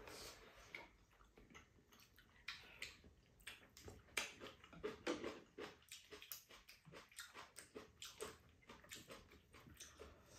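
Faint eating sounds from two people having rice cake soup: irregular short clicks of spoons against bowls, with slurping and chewing.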